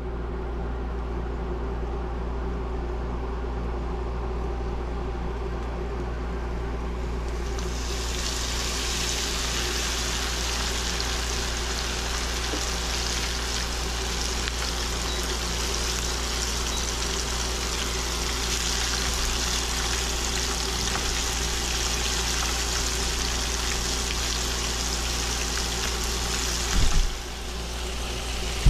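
Whole snapper, dredged in flour, frying in hot oil: a loud, steady sizzle sets in about a quarter of the way through, after the fish goes into the pan, over a constant low hum. Two brief knocks come near the end.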